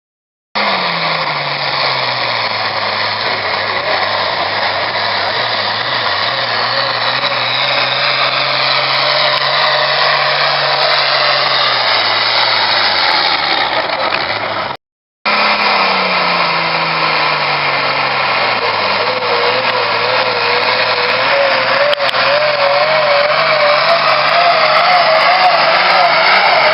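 Pro farm class pulling tractor's modified diesel engine running hard under full load while pulling the sled. Its pitch drops at the start and then holds steady. After a brief break about halfway through, another run follows, its pitch again falling and then levelling.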